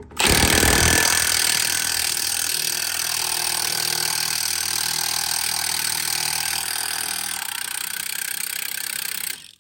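Impact wrench hammering continuously on a rusted sway bar end link nut. It is loudest in the first second, then runs steadily and cuts off suddenly near the end.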